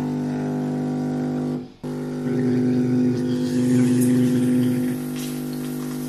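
Silvercrest SSMS espresso machine's vibratory pump humming steadily during a pressurized-basket extraction. The hum drops out briefly a little under two seconds in, then resumes with a rough, hissing edge from the coffee forced through the pressurized basket.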